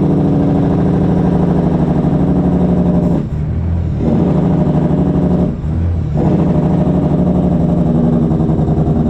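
Semi-truck diesel engine with its newly repaired engine brake (Jake brake) working: a loud, rapid, steady rattle that drops away briefly twice, about three and five and a half seconds in.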